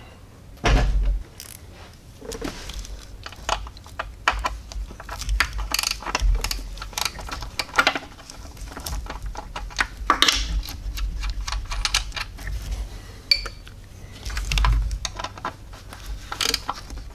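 Scattered clicks, taps and light rattles of gloved hands working on a plastic upper intake manifold and its brackets and vacuum line under a car hood, with a few dull thumps.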